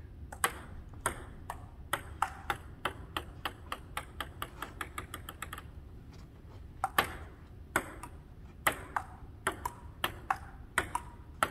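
Table tennis ball clicking off paddles and the table. First comes a run of bounces that comes quicker and quicker, then a rally of alternating paddle hits and table bounces at an even pace.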